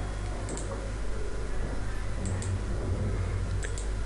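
Computer mouse clicked three times, each click a quick double tick of press and release, over a steady low hum.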